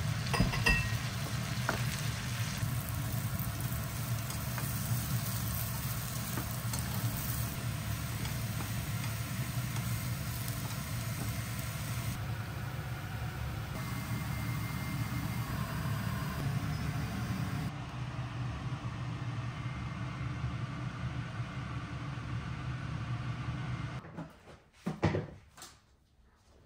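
Sweet potato slices sizzling in oil in a frying pan, over a steady low hum. Near the end the sizzling cuts off and a few soft thumps follow.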